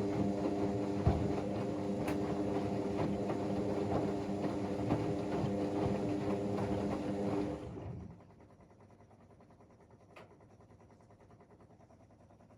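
Whirlpool AWM 864 washing machine in its wash action: the motor turns the drum with a steady hum and a light rattle for about eight seconds, then stops, leaving a pause with one faint click.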